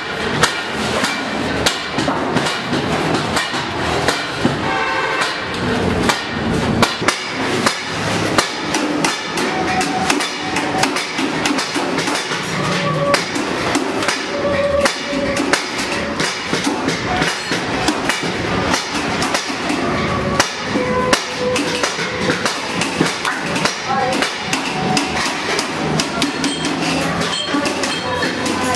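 Hammering and clanking on sheet metal: many sharp, irregular knocks throughout, over background music.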